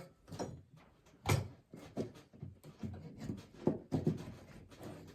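Light wooden knocks and clicks of thin cedar picket boards being handled as short pieces are fitted between the slats, a few separate knocks with the sharpest about a second in.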